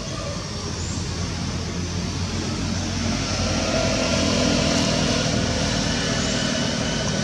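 A motor vehicle's engine running steadily with a low hum, growing louder over the first four seconds or so.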